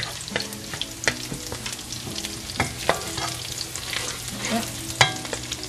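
Minced garlic sizzling in hot oil in a nonstick wok, being sautéed until it browns, while a wooden spatula scrapes and taps the pan in frequent short clicks. A sharper knock of the spatula on the pan about five seconds in.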